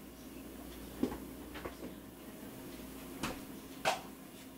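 A cat nosing at its plastic bowls on the floor: four short, light knocks and clicks spread over a few seconds, the loudest near the end.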